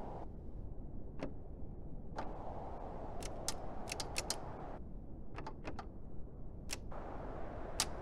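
Metal door handle and latch being worked: about a dozen sharp clicks and rattles in irregular bunches, thickest in the middle. A steady low hiss underneath drops out and comes back.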